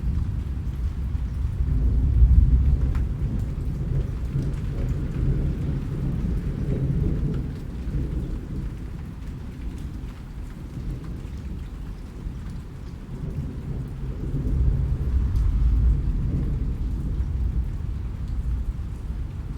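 Rain falling steadily under rolling thunder. A low rumble swells about two seconds in and again near the end.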